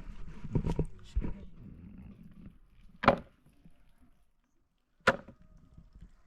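A few dull knocks and handling noises, then two sharp, loud knocks about two seconds apart.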